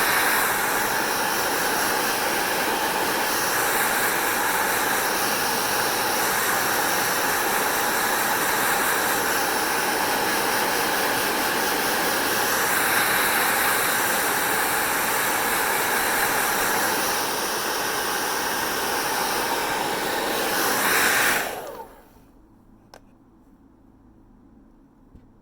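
Hand-held hair dryer running steadily, blowing with a faint whine, its level shifting slightly a few times. About 21 seconds in it is switched off and dies away within a second, leaving a faint background with a couple of small clicks.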